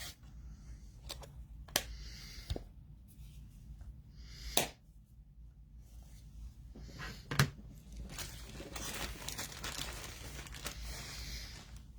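Paper being handled and torn or peeled at a craft table: soft rustling and crinkling broken by a few sharp taps, then a longer stretch of dense, scratchy rustling near the end.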